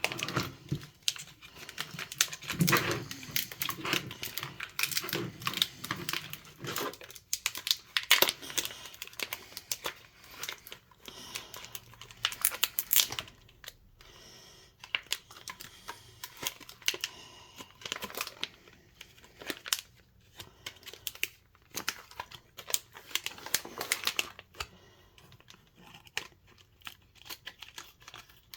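Filament packaging being handled and opened: irregular crinkling and rustling with some tearing, busiest in the first several seconds and again around the middle and two-thirds through, quieter in between and near the end.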